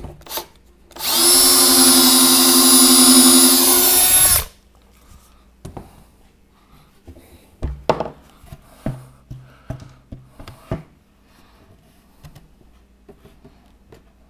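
Cordless Milwaukee drill running a Kreg stepped pocket-hole bit through plywood in the jig at steady speed for about three and a half seconds, then stopping abruptly. A scatter of light knocks and clicks follows.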